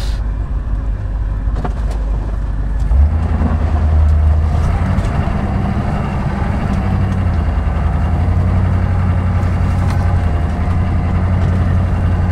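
Hummer H1 engine running as the truck drives off-road, heard from inside the cab. About three seconds in, its low note grows louder as it takes on more load, then holds steady.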